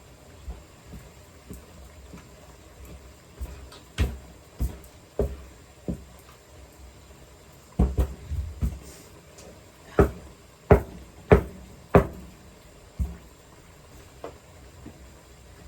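Rolling pin pounding cooked yam in a wooden bowl to smoothen it: a series of separate knocks at an uneven pace, often about one every half second to second, loudest in a run of four strikes past the middle.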